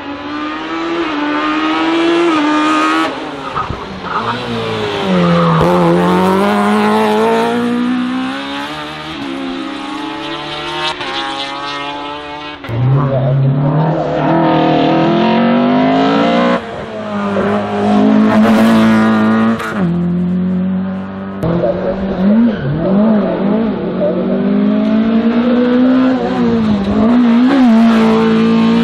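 Hillclimb race car engines at full throttle, one car after another, each pitch rising through a gear and dropping sharply at the upshift.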